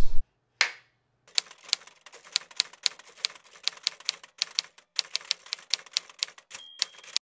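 Typewriter sound effect of keys clicking at about three to four strokes a second as on-screen text is typed out, with a short sweep just before the typing starts and a brief ringing tone near the end.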